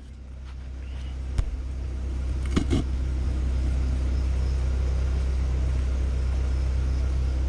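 Steady low machine hum, like an engine or motor running, fading up over the first few seconds and then holding steady, with a couple of light clicks early on.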